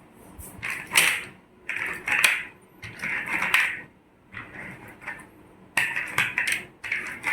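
Small toys being handled, clattering and rattling in about six short bursts.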